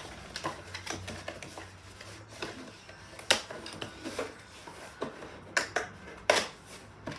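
Pieces of a nail-desk arm rest being handled and set down: irregular clicks and knocks, with two louder knocks about three and six seconds in.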